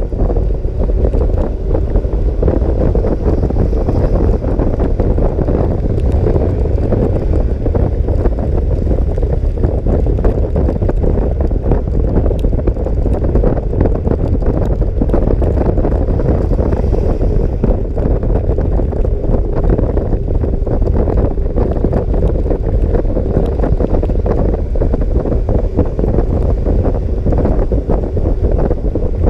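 Wind buffeting the microphone of a moving scooter, a loud, steady, fluttering low rumble that masks the engine.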